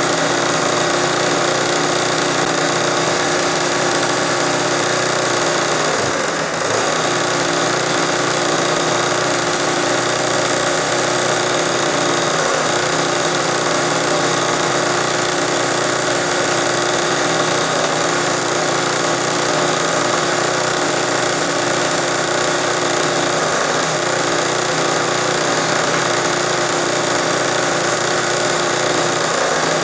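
Sewing machine running fast and steadily, stitching a machine-embroidery border, with a brief dip about six seconds in.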